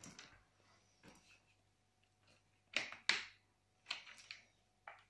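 Faint rustles and clicks from handling a baby stroller's fabric and frame: a few short scrapes, the loudest two close together about three seconds in.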